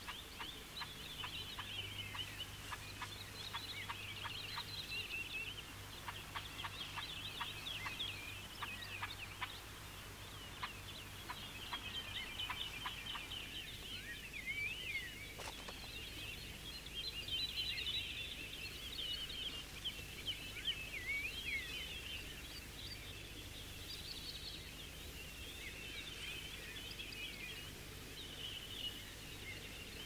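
A flock of azure-winged magpies giving a continuous chorus of rapid chattering alarm calls, several birds at once, raised against a snake climbing toward their nests.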